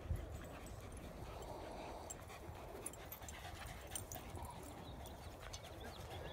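Several dogs playing rough on grass: faint dog vocal sounds and scuffling, over a steady low rumble.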